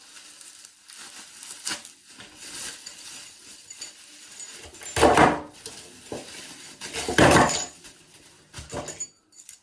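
Unwrapping a brass padlock from its packaging: the wrapping rustles, with small clicks and clinks as the lock is handled. There are two louder rustles, about five and seven seconds in.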